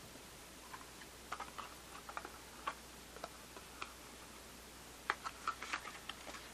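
Irregular small clicks and taps of .380 ACP cartridges and their ammunition box being handled, with a quick cluster of clicks about five seconds in.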